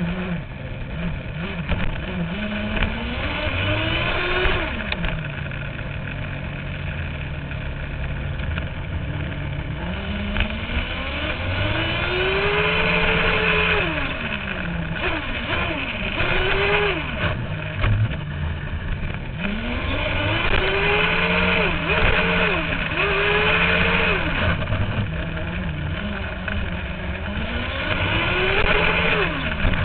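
HPI RS4-2 RC car's motor revving up and falling back several times as the car accelerates and eases off, with a steadier low hum between runs, heard from a camera mounted on the car's roof.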